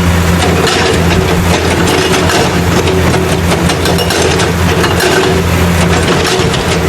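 A heavy machine engine running steadily at a low pitch, with a dense, continuous clatter over it.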